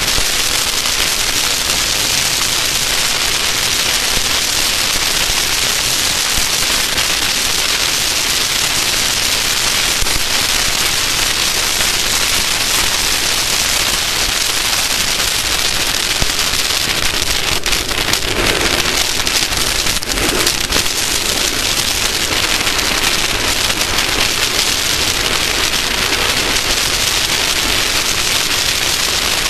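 Loud, steady rushing hiss with constant fine crackle, the wind and dirt noise of an off-road race vehicle on the move, with a brief lower rumble about 18 to 21 seconds in.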